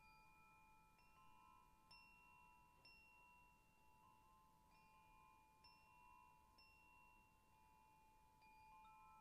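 Faint background music of soft, bell-like chime notes, a new note starting about once a second and ringing on under the others.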